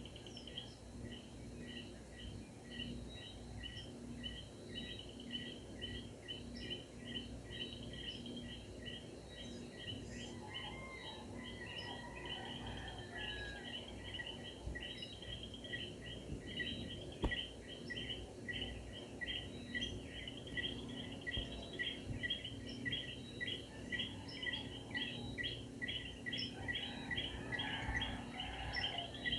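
A night chorus of calling animals: many short chirps repeated evenly, about two or three a second, over a steady hiss, with a few gliding calls about ten seconds in and a single sharp click a little after the middle.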